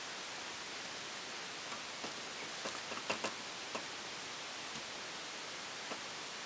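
Steady hiss with a handful of light clicks and knocks between about two and four seconds in, and one more near the end: parts being handled while a car seat is fitted.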